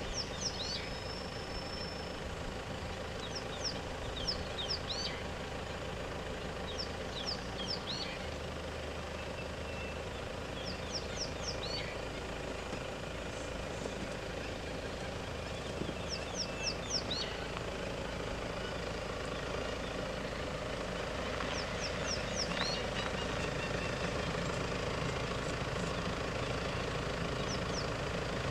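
A vehicle engine idling steadily, with a bird calling over it in runs of three or four quick, high falling notes every four or five seconds.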